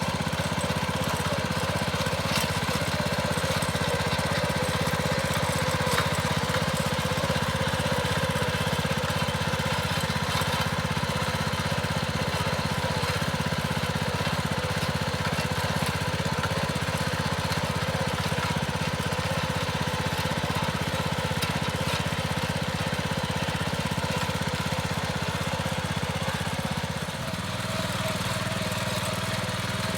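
Small petrol engine of a motor hoe (garden tiller) running steadily while tilling soil. Near the end its note shifts lower.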